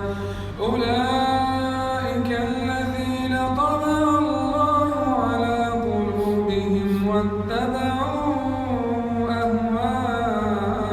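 A man's voice reciting the Quran in the slow melodic chanting style, holding long drawn-out notes that slide slowly up and down, with one short break for breath about half a second in.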